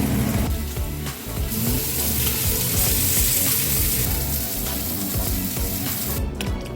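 Steak sizzling in a frying pan: a steady frying hiss that swells for a few seconds in the middle, with background music underneath.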